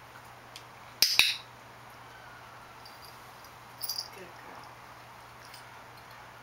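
Training clicker pressed and released: a sharp double click about a second in, marking the cat's sit as the cue that a treat is coming. A quieter brief rustle follows a few seconds later.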